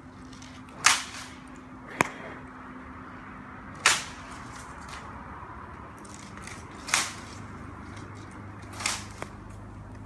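Bamboo burning in a campfire, giving about six sharp pops at uneven intervals over the fire's steady hiss. The pops come from the sealed bamboo sections bursting as the air and moisture inside heat up.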